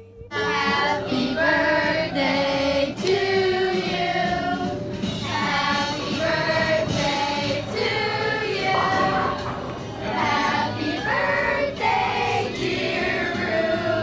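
A song with several female voices singing together over accompaniment, in held notes that change about once a second.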